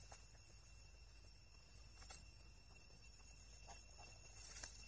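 Near silence: a faint, steady high insect drone, with a few soft clicks, the clearest near the end.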